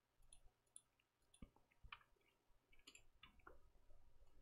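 Near silence with a few faint, scattered clicks of a computer mouse.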